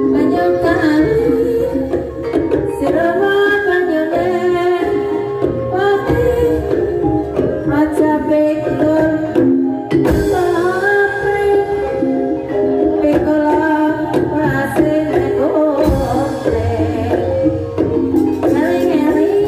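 Banyumasan gamelan music accompanying an ebeg horse dance: sustained ringing metal tones and frequent hand-drum strokes, with a singer's wavering melody over them.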